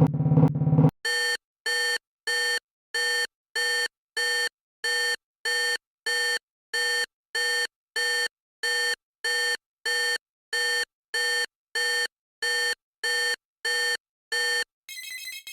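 Emergency alert alarm: a long run of identical short electronic beeps, about one and a half a second, each a pitched tone with several overtones. A loud drumming music passage cuts off about a second in, before the beeps start, and near the end a different, higher-pitched electronic alert signal takes over.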